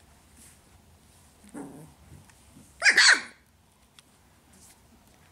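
A young puppy barking in play: a short low sound about a second and a half in, then one loud, high-pitched bark about three seconds in.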